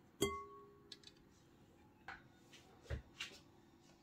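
A clear glass mixing bowl rings once when tapped about a quarter second in, followed by a few soft knocks and clicks as pieces of tofu are broken apart and set down in it.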